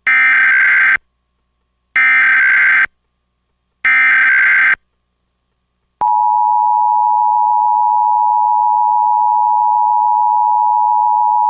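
Emergency Alert System tones: three short bursts of SAME header data, each about a second long with about a second's gap between them, then the steady two-tone EAS attention signal starting about six seconds in and holding.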